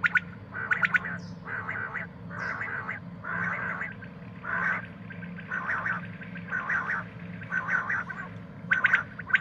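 Common quail calling: a series of short, rasping, croak-like notes, roughly one every 0.7 s, over a faint steady hum. Near the end a rapid run of sharp clicky notes begins.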